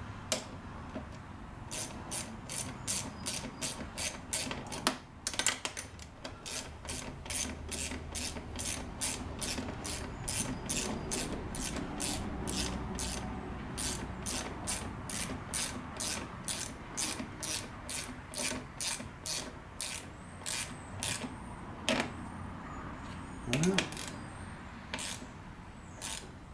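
Socket ratchet clicking in a steady run of short strokes, about three clicks a second, as a bolt on the plastic air filter bracket is tightened. The clicks slow and become irregular near the end.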